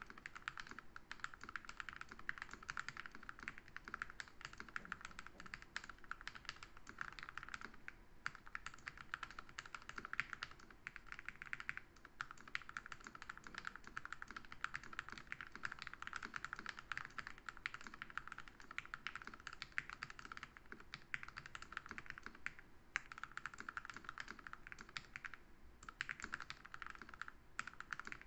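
Typing on a Gamakay 87 mechanical keyboard fitted with TTC Orange linear switches (red stem, 3-pin) lubed with 205g0: fast, continuous keystrokes with a few brief pauses.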